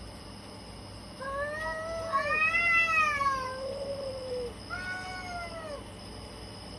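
Domestic cats yowling at each other in a fight standoff: long, drawn-out wavering calls, two overlapping from about a second in, then a shorter one near the five-second mark.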